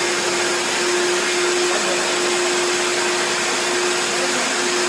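A 60-litre wet and dry vacuum cleaner running steadily: an even rush of air with one constant hum in it.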